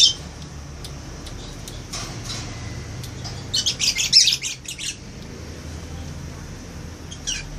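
Caged pet birds calling: a sharp call at the start, scattered chirps, then a loud run of squawks from about three and a half to five seconds in, and one more call near the end.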